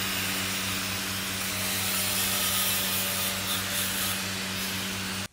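Steady workshop background noise: a low, even electrical hum with a hiss over it. It drops out for an instant at the very end.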